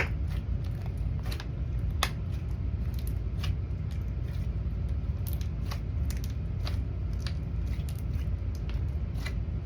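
Slime being worked by hand, giving scattered sharp bubble pops at irregular intervals of roughly a second, over a steady low hum.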